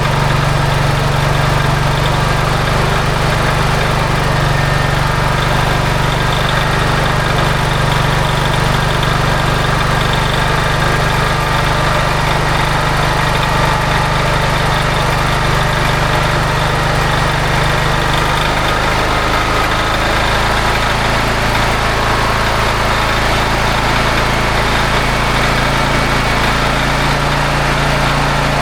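Honda EB5000X gas generator's single-cylinder engine running steadily. Its low engine note shifts about two-thirds of the way through.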